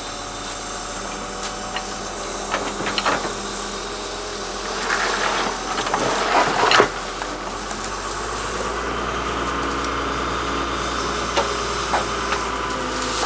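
Large excavator's diesel engine running steadily, with scattered knocks and a louder rushing, hissing surge about five to seven seconds in.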